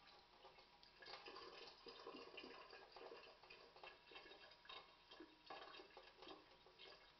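Faint thin stream of tap water falling into a stainless steel kitchen sink, spattering unevenly as a cat paws at it and drinks from it. The splashing gets busier about a second in.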